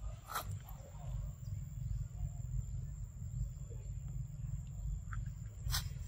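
Steady low rumble with a thin high steady tone over it, and a few short crackles, as of leaves and twigs, as a small monkey moves through undergrowth; the loudest crackle comes near the end.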